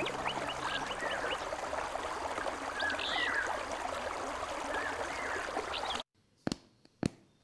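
Nature ambience of a running stream with small birds chirping, which cuts off suddenly about six seconds in. Two footsteps then click on a hard floor near the end.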